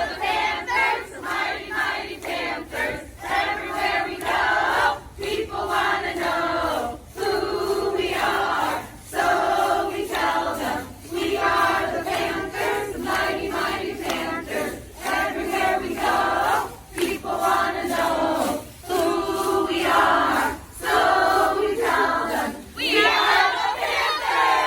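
A group of adult voices chanting a school pep cheer in unison, shouted phrases in a steady rhythm with short breaks between them, breaking into cheering and whoops near the end.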